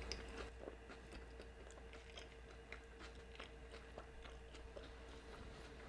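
Quiet close-up chewing of a beef burrito dipped in consommé, with scattered faint wet mouth clicks over a low steady hum.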